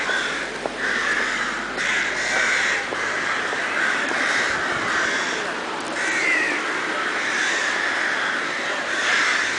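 Harsh animal calls repeating about once a second in a continuous chorus over a steady rushing noise, with a short bending call about six seconds in.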